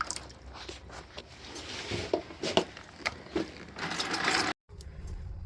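Scattered light clicks, knocks and scrapes of hands working the steam boiler's drain fittings, with no water running. The sound drops out completely for a moment about four and a half seconds in.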